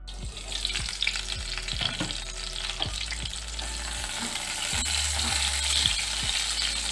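Whole pointed gourds sizzling as they fry in mustard oil in a metal wok, turned over with a steel spatula that scrapes and knocks against the pan.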